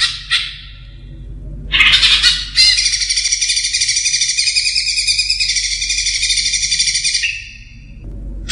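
Green leafbird (cucak ijo) singing: two short harsh chirp bursts, then a long, fast, rapidly warbling high phrase of about four and a half seconds that breaks off about a second before the end.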